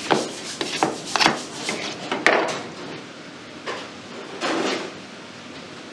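Knife and shell scraping and knocking while large clams are shucked by hand: a run of sharp clacks and scrapes, the loudest about two seconds in, then softer scraping.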